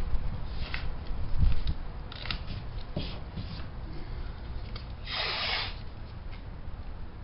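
Painter's tape being handled and pressed down, with short crackles and low handling bumps, then about five seconds in one longer rip of tape pulled off the roll, lasting about half a second.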